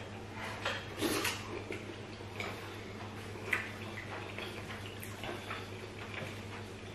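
Wet eating sounds of people eating soupy food with their hands: chewing, lip smacks and a slurp about a second in, with a few small clicks, over a steady low hum.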